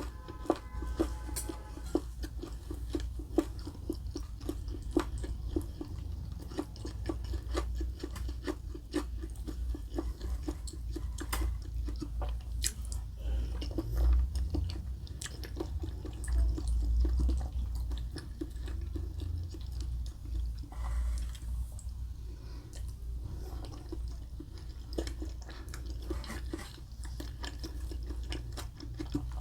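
Close-miked, wet chewing with crisp crunching, a person eating a meal of breaded chicken katsu, rice and macaroni salad; many small irregular crackles and smacks follow one another without a pause.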